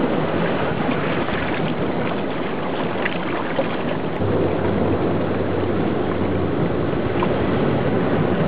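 Steady, muffled rushing and sloshing of seawater in a rock pool, heard through an underwater camera's housing. A low hum joins it about four seconds in for a few seconds.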